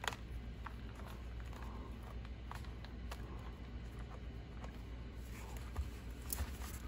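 Faint, scattered light clicks and taps from an RC car chassis being handled and turned over by hand, over a steady low hum.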